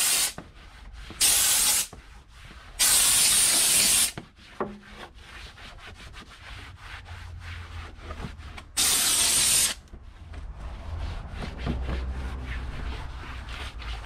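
McCulloch handheld steam cleaner's nozzle hissing in short loud blasts of steam, four in all, the last about nine seconds in. Between blasts a microfiber towel rubs and wipes over the plastic engine cover.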